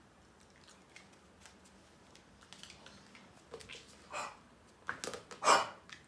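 Pit bull puppy with kennel cough giving a few short, harsh hacking coughs in the second half, the loudest near the end.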